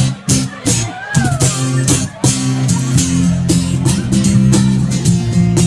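Live rock band playing an instrumental passage: electric guitar, bass guitar and drum kit, with a steady bass line and regular drum strikes.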